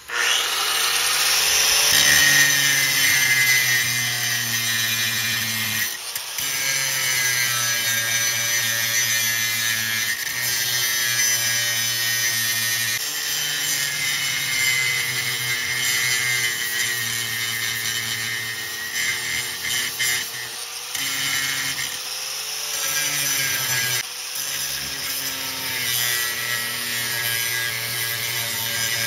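Angle grinder starting up and grinding the fiberglass around a through-hull opening in a boat hull. Its motor whine sags and recovers as the disc is pressed in, dipping briefly several times.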